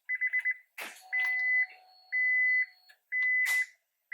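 An electronic warning chime beeping at one high pitch: a quick group of four short pips, then long, even beeps about once a second. A short click comes about a second in, and a brief knock midway through the long beeps.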